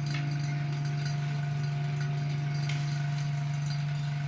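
A steady low hum with a fainter, higher steady tone above it, unchanged throughout.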